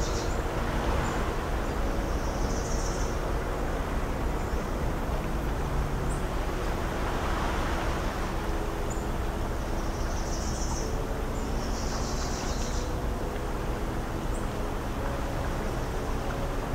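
Coastal outdoor ambience: a steady low rumble of surf and a distant motor hum. Small birds chirp briefly several times.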